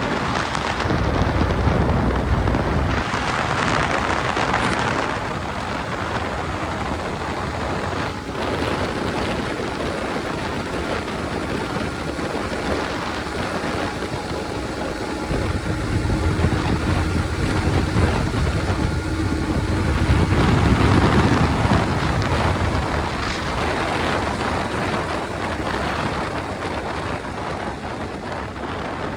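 Motorcycle engine running, mixed with heavy wind noise on the microphone, swelling louder near the start and again about two-thirds of the way through.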